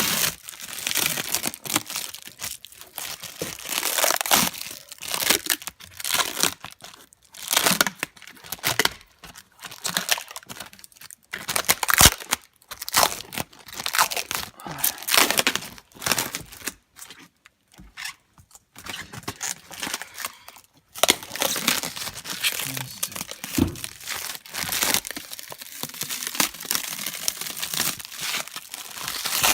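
Plastic sheeting being pulled off and torn, crinkling and rustling in irregular bursts, with a couple of sharp knocks.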